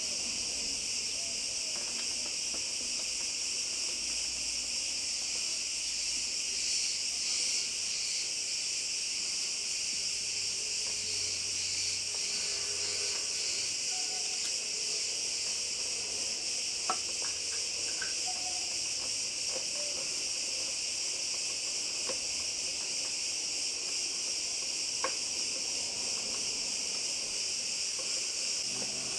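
Insects chirring steadily in a dense, high-pitched drone, with a couple of faint metallic clicks as a screwdriver tightens a motorcycle battery terminal bolt.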